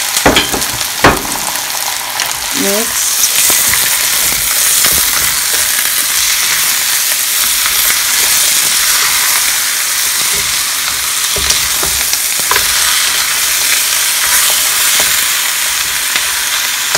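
Raw pork ribs sizzling as they sear in hot oil in a wok, with a steady frying hiss while a wooden spoon stirs them. A few sharp knocks of the spoon on the pan come near the start and again later.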